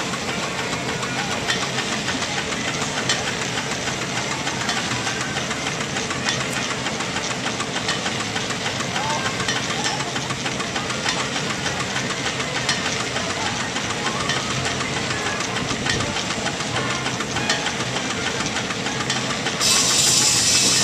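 Steam traction engine running steadily, a dense mechanical clatter with many small knocks. Near the end a loud hiss of steam being let off starts.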